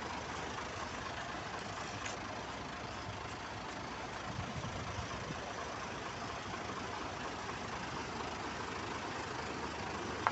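Isuzu Elf light truck's diesel engine running steadily, with a faint click about two seconds in.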